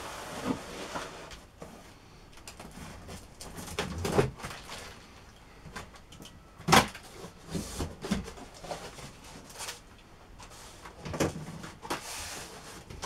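A large cardboard box being handled and opened on a wooden workbench: irregular bumps, scrapes and rustles of cardboard, with the loudest knock about seven seconds in.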